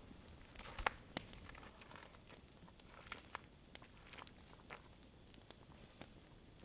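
Small wood campfire crackling faintly, with scattered quiet pops and snaps.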